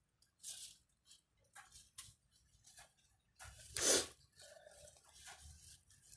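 Sweet potato shoots being picked by hand: short crackles and rustles of snapping stems and leaves, with one louder snap about four seconds in.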